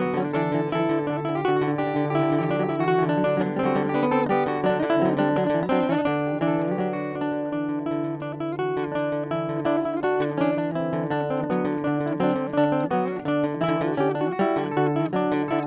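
Background music led by an acoustic guitar, plucked and strummed at a steady pace.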